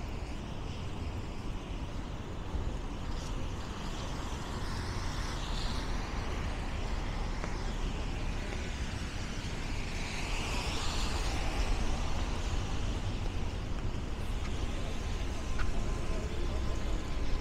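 City street traffic: a steady low rumble of engines with tyre hiss, and a vehicle passing close about ten seconds in.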